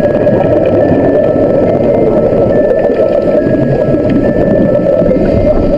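Loud, steady, muffled rushing of water and boat noise, all of it low and dull, with faint thin tones drifting in and out above it.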